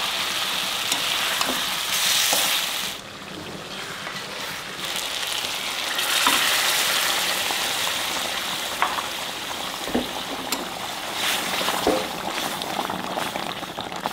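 Pieces of ilish (hilsa fish) sizzling in hot mustard-oil spice paste in a metal wok, with a metal spatula clicking and scraping against the pan now and then. The sizzle drops about three seconds in and rises again a few seconds later.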